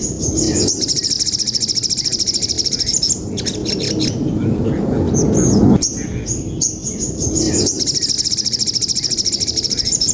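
Caged sogon songbird singing sparrow-fight chatter: two long, very fast, high-pitched chattering trills with short chirps in between, over a steady low background rumble.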